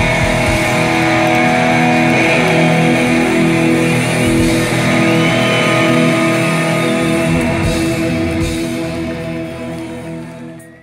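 Live rock band with a lead electric guitar playing over held, sustained chords, with gliding bent notes. The music fades out over the last few seconds.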